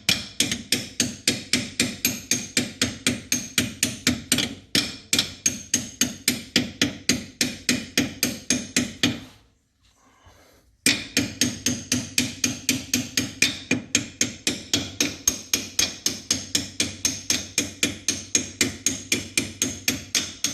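Rapid, steady hammering, metal on metal, about four blows a second, from a tool used as a hammer driving the lower bolt through a rear shock absorber's eye on a Jeep Wrangler YJ. The blows stop for about a second and a half a little before halfway, then go on at the same pace.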